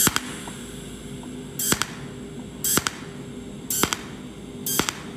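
Cold welding machine spot-welding a copper pipe to a stainless steel pipe with a pulsed tungsten arc. Each pulse gives a short, sharp crackle, about one a second and five in all, over a faint steady hum. The small gap is being welded directly without filler wire.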